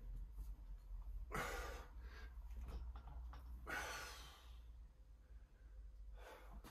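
A weightlifter's forceful breaths while pulling a heavy barbell deadlift: two loud, hard exhales about two seconds apart, and a fainter one near the end.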